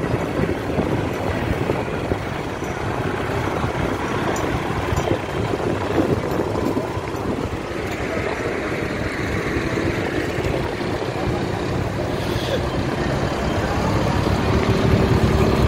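Tractor engines running steadily in a convoy, with wind rushing over the microphone.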